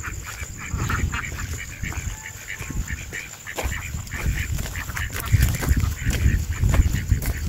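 Duck quacking repeatedly in quick short calls, several a second, over a loud low rumbling noise.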